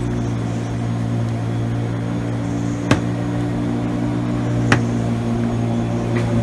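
A steady low machine-like hum, with two sharp clicks about two seconds apart.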